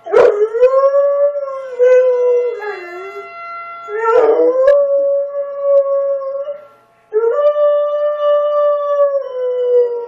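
A dog howling in reaction to a tornado siren: three long howls, each rising quickly and then holding before sagging in pitch, the second starting about four seconds in and the third after a short break about seven seconds in.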